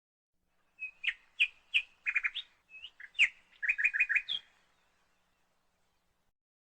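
A bird chirping: a quick run of short, sharp chirps and rapid trills, starting about a second in and stopping after about four and a half seconds.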